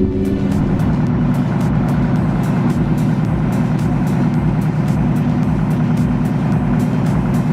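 A heavy vehicle engine running steadily, mixed with background music.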